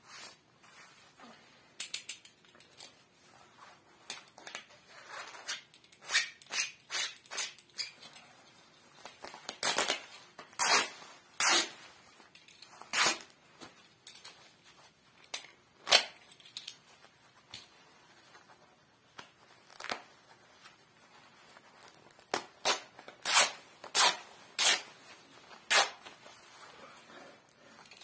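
The thin synthetic fabric of a Nike FC Barcelona jacket is slit with a utility knife and ripped, in short, sharp tears that come in clusters. Quieter rustling of the jacket comes between the tears.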